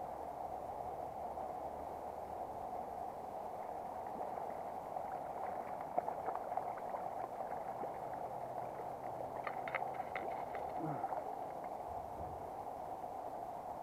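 Shallow river water running steadily over stones, with a hooked brown trout splashing at the surface about six seconds in and a few short sharp ticks a little before ten seconds.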